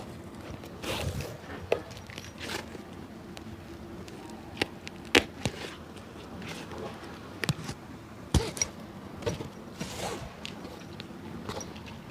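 Cobbler's hand work on a shoe: irregular taps and clicks mixed with short scraping or brushing strokes, the sharpest clicks about five and eight seconds in.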